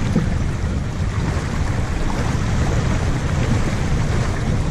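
Steady wind buffeting the microphone aboard a sailboat under way, a dense low rumble with the wash of water beneath it.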